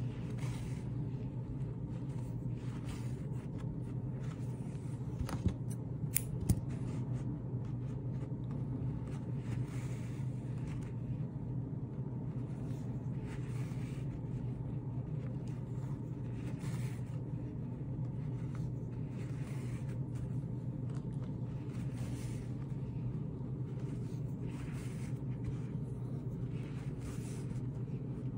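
Wool yarn being drawn with a needle through the knotted foundation of a hand-knotted rug, a soft scratchy rustle about once a second, over a steady low hum. Two sharp clicks come about five and a half and six and a half seconds in.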